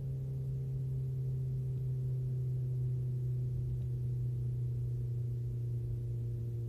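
Steady exhaust drone of a 2014 Dodge Dart Rallye's 1.4-litre turbocharged four-cylinder through its custom-built dual exhaust, heard from inside the trunk while the car is driven. One strong low hum holds an even pitch and level, with fainter steady tones above it.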